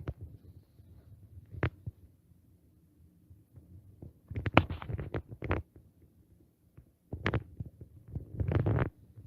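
A handful of sharp knocks and clicks with low thumps: one about a second and a half in, a cluster of several around the middle, another near the end, and a short rustling burst just before the end.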